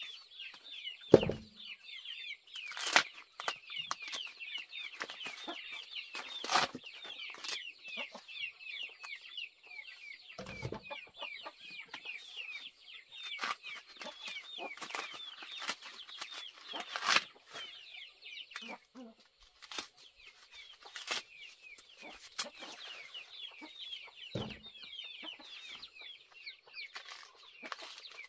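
Fresh ears of corn being husked by hand: green husks ripped and snapped off in sharp tearing sounds, with a few dull thuds. Under it, chickens chirp rapidly and without a break.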